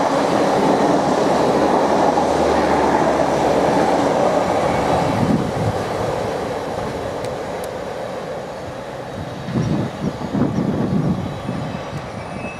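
Container wagons of a freight train rolling past at speed, a loud steady rumble of wheels on rail. It fades from about five seconds in as the end of the train passes and draws away, with a few low bumps near the end.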